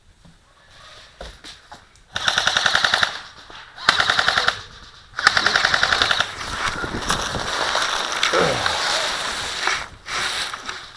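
Airsoft guns firing on full auto: three short rapid bursts, each about a second long, then a longer stretch of continuous firing lasting about four seconds.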